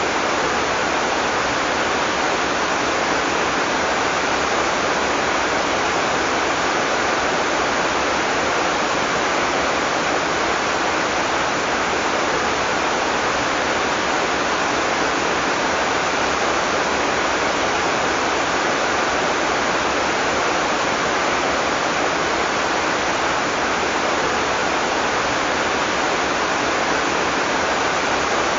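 Heavy tropical rain falling in a steady, even downpour, with no thunder.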